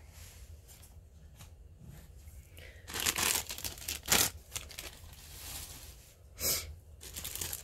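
Thin plastic zip-top bag crinkling in several short bursts, starting about three seconds in and again near the end, as a carded bracelet is taken out of it.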